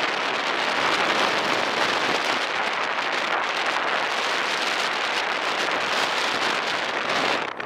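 Steady rushing wind over the microphone from riding along at speed, an even hiss with no distinct engine note.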